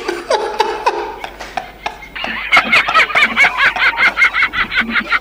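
A man laughing hard. From about two seconds in it becomes a high-pitched, rhythmic cackle of about five bursts a second.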